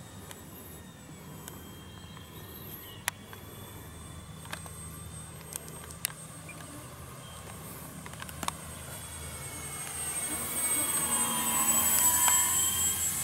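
Electric motors and propellers of a FlightLine P-38L Lightning RC warbird whining faintly at a distance, then growing louder and shifting in pitch as the plane passes close, loudest about twelve seconds in. A few faint clicks are heard along the way.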